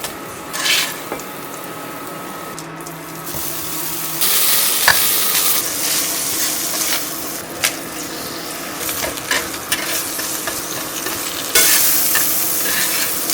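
Food sizzling as it fries in a pan, the sizzle growing louder about four seconds in and again near the end, with a few light clicks of a utensil against the pan.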